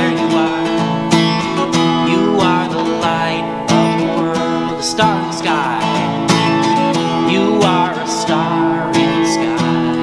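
Acoustic guitar strummed in a steady rhythm, accompanying a man singing a slow worship song.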